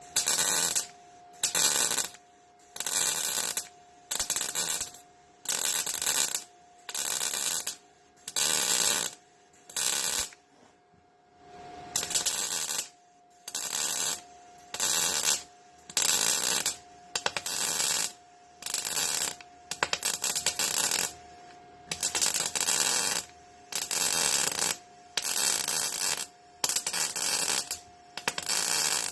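MIG welder laying short stitch welds in sheet-steel floor panel: repeated bursts of arc crackle about half a second long, roughly one a second, with a pause of about two seconds a third of the way in. A steady hum runs underneath.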